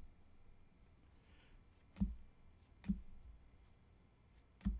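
Trading cards being handled on a table: three short sharp taps as cards are set down or knocked against the stack, about two, three and four and a half seconds in, with a faint swish of a card sliding between them.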